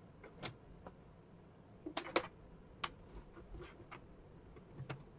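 Wooden jigsaw puzzle pieces clicking and tapping against each other and the table as they are picked up and fitted. A handful of light, sharp clicks, with a quick cluster of louder ones about two seconds in.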